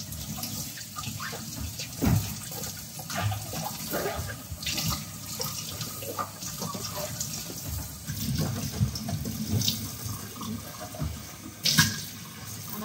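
Kitchen tap running water into a sink, with a few sharp knocks of dishes being handled in it.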